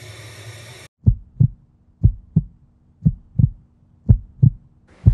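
Heartbeat sound effect: low double thumps, lub-dub, about once a second over a faint steady hum. A brief hiss of noise comes before it.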